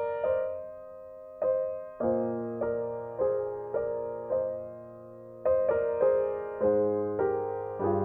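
Background piano music: single notes and soft chords struck about twice a second, each fading away, with short lulls about a second in and near the middle.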